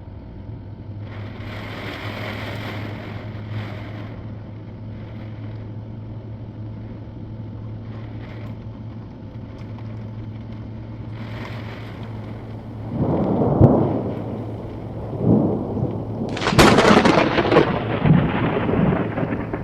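Thunderstorm: rain falling steadily, then thunder from about two-thirds of the way in, low rumbling claps building to one loud, sudden crack near the end that rolls on in rumbles.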